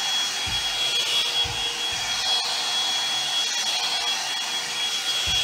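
Hot-air dryer brush running steadily while drying hair: a loud rush of air with a steady high motor whine.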